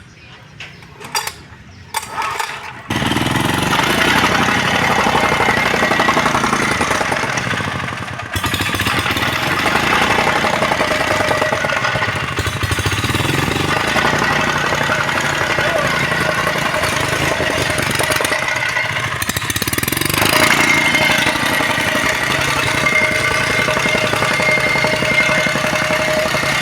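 Tsuzumi diesel tamping rammer starting: a few short sharp sounds, then the engine catches about three seconds in and runs steadily and loudly.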